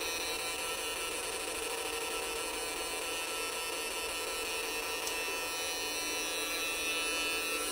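Chinese-made electronic fish-shocker inverter running off a 12 V battery with a steady electrical hum and buzz, driving a load of three 200 W light bulbs.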